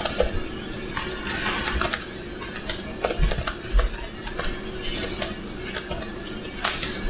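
Irregular light clicks and taps, with a couple of dull thumps about three to four seconds in, over a steady low hum.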